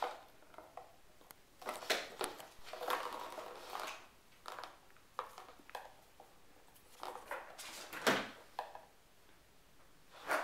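Irregular light knocks, clicks and rustles of kittens moving about on a hardwood floor, with one louder thump about eight seconds in.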